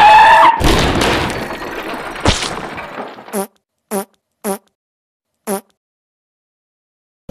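Cartoon sound effects: a held tone and a fading noisy whoosh in the first seconds, then four short, identical pops, each dropping in pitch, as four tyres pop onto the screen one by one.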